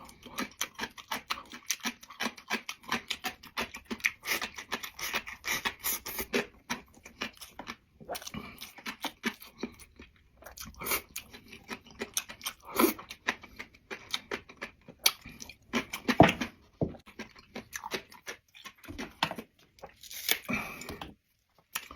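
A person chewing a mouthful of dried tofu rolled around raw scallion, heard close up: an irregular run of short chewing clicks and crunches, with a few louder crunches in the second half.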